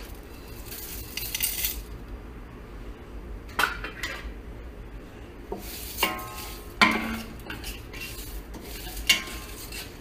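Wooden spoon stirring chopped onion and garlic in a stainless steel pot: a stretch of scraping along the pot, then four sharp knocks of the spoon against the metal, a couple of them leaving a brief ring.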